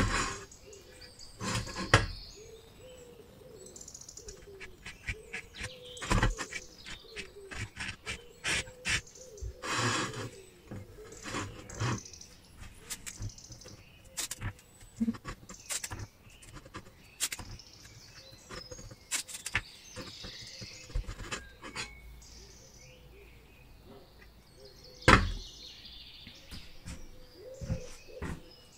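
Handling clicks and knocks as the metal tank of an old camping stove is masked with rag and tape, with a longer rasp about ten seconds in and a sharp knock near the start and another near the end. Birds chirp faintly in the background.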